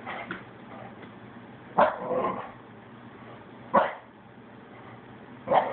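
A dog barking: three short barks about two seconds apart, aimed at a folding chair it is attacking.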